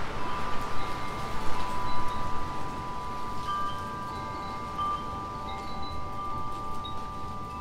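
Wind chimes ringing in the breeze, several sustained notes overlapping. There is a flurry of strikes in the first couple of seconds, then a few lighter strikes as the ringing carries on.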